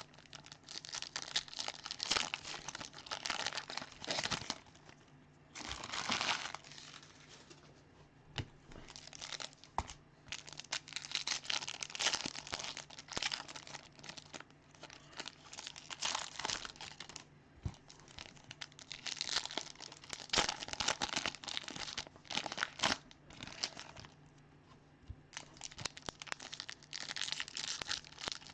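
Baseball card pack wrappers being torn open and crinkled, in bursts of crackling with short pauses between them.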